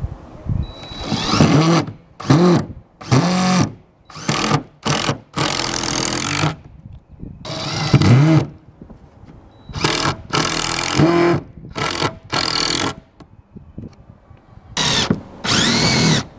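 Cordless impact driver sinking screws through a pine board into a metal roof, in about a dozen short bursts of a second or less, its pitch rising and falling with each squeeze of the trigger.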